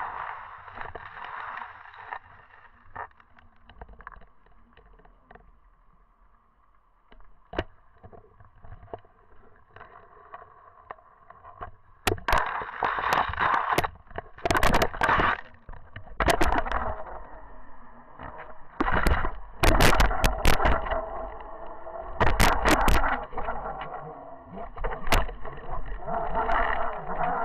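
Underwater sound picked up by a camera in its housing: muffled water noise with scattered faint clicks, then from about twelve seconds in many sharp knocks and clacks with loud rushing water as the camera swings and bumps about.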